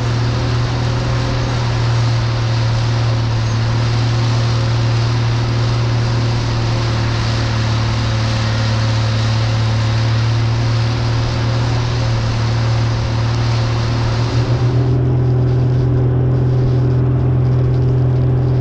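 A 4x4 vehicle driving on a snowy road: a steady low engine hum under a broad hiss. About fifteen seconds in, the hiss drops away sharply, leaving the engine hum.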